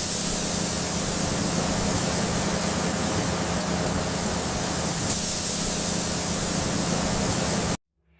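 A loud, steady spraying hiss over a low machine hum, which cuts off suddenly near the end.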